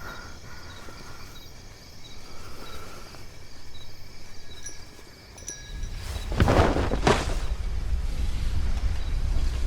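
Soundtrack sound effects: quiet ambience with faint high tones, then about six seconds in a low rumble rises and two loud whooshes sweep through.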